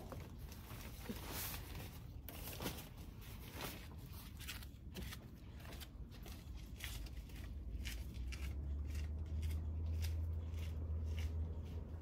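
Tent being pitched by hand: soft rustles and short, irregular clicks and scrapes as a tie is pulled through and fastened. A low steady rumble comes in about two thirds of the way through.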